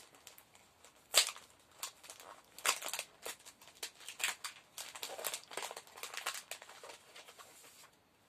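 Large adhesive tape being peeled and torn off a wrapped package by hand, crinkling in irregular rustles. The loudest crackle comes about a second in, and the sound stops near the end.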